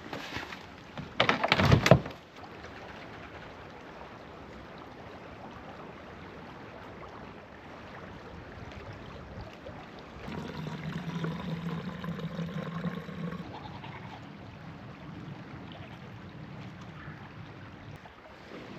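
River water flowing in a steady wash. About a second in there is a loud, brief rush of noise, and a low steady hum rises from about ten seconds in and fades after about three seconds.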